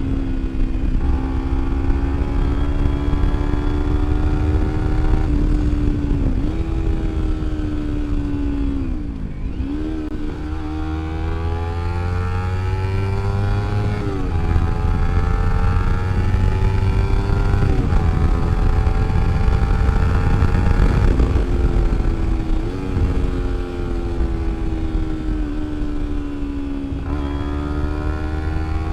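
Kawasaki Ninja 250R's parallel-twin engine through a slip-on exhaust with the dB killer removed, running loud and open while the bike is ridden. The pitch climbs steadily and drops back several times as the rider rolls the throttle and shifts gears.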